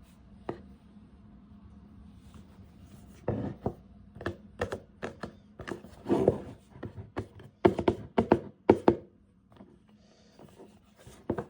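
Hands unpacking a camera box: irregular taps, thunks and rustling of cardboard and packaging, with a cluster of sharper knocks about eight to nine seconds in.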